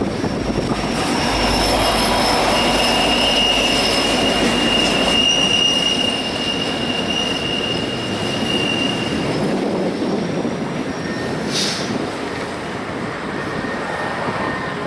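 Double-stack container train rolling past, a steady rumble of cars on the rails with a long high-pitched wheel squeal from about two seconds in to about nine seconds, and a short sharp squeal about twelve seconds in.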